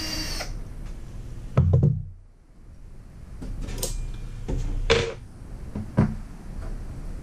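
Handling knocks and clatters of tools and parts on a toaster oven's metal case during disassembly. There is a heavy thump about a second and a half in, a few lighter clicks and knocks, and another sharp knock about six seconds in.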